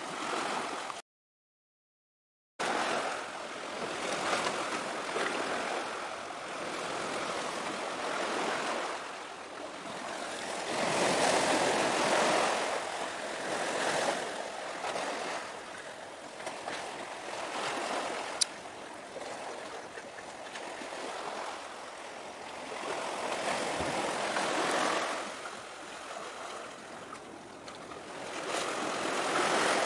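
Sea waves washing and breaking against the shore, a rushing noise that swells and ebbs every few seconds. The sound drops out completely for about a second and a half near the start, and there is one sharp click later on.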